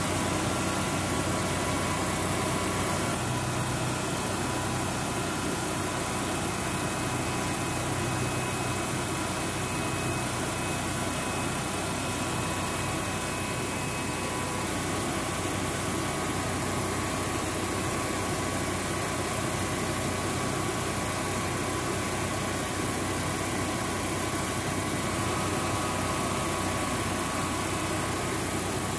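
First-generation Generac home standby generator engine running steadily under its mechanical governor, with a steady hum, while the generator puts out about 240 volts.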